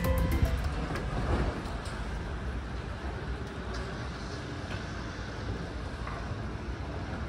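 Steady low rumble and hiss of a large shop's entrance hall, with escalators running through it. The tail of background music fades out in the first second.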